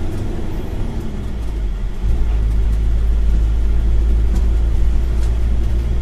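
Road and engine noise of a vehicle cruising on a highway, heard from inside the cab: a steady rumble whose low end grows louder about two seconds in.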